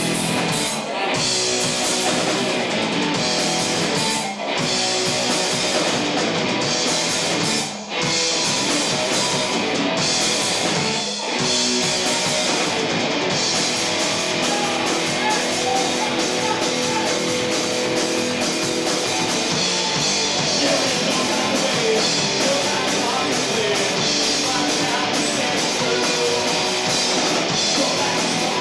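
Live rock band playing electric guitars and drum kit. In the first twelve seconds the band cuts out together for a split second four times, about every three and a half seconds, then plays on without a break.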